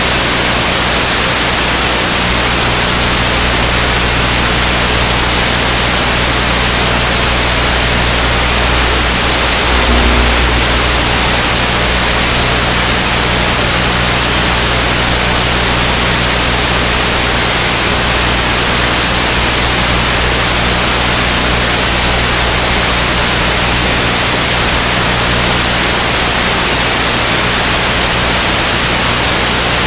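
Steady, loud hiss like radio static, even across the whole range, with a faint low hum beneath it. There is a brief low swell about ten seconds in.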